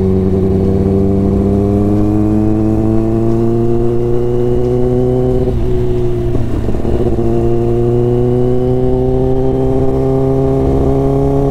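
Kawasaki ZX-10R's inline-four engine running under light throttle on the road, its pitch climbing slowly as the bike gathers speed. About six seconds in there is a short dip, then the pitch picks up and climbs again.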